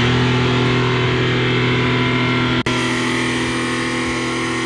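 Mercedes G-Class engine revved up and held at high, steady revs as the SUV drives through deep mud, with a brief dropout about two and a half seconds in.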